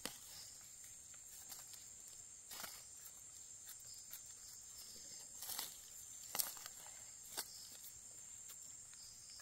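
Faint, brief rustles and scrapes as hands and a knife work in dry leaf litter, scraping soil off freshly dug-up mushrooms, with a few sharp ticks a few seconds in. Behind them is a steady, high-pitched insect drone.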